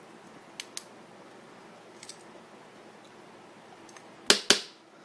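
Small sharp clicks of hard objects being handled: two faint clicks about half a second in, two more about two seconds in, then two loud clicks a fraction of a second apart near the end.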